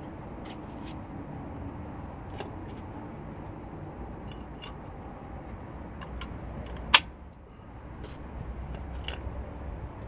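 Scattered light metallic clicks and taps as a car's front brake caliper and pads are handled and fitted over the disc by hand, with one sharp metal click about seven seconds in, over a steady low background hum.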